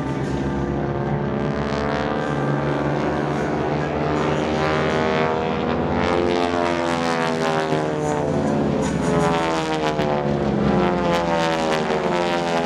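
Several North American T-6 Texans' nine-cylinder Pratt & Whitney R-1340 radial engines and propellers droning overhead during formation aerobatics. Their pitches slide up and down across one another as the planes pass.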